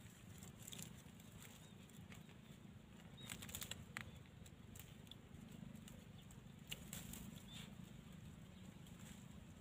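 Near silence: faint rustling and small clicks of leaves and stems being handled at ground level, a few of them a little louder around the middle, over a low steady rumble.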